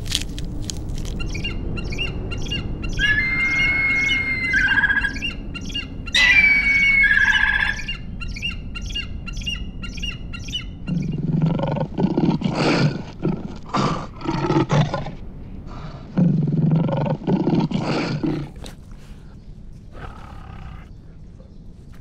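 Birds chirping and whistling at first. About halfway through, a lion roars in two bouts of short, low grunting roars, each a few seconds long.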